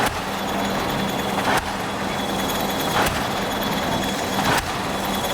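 Pile-driving hammer on an EO-5111B excavator's piling rig striking a pile about every second and a half, four blows in all, over the excavator's steadily running engine.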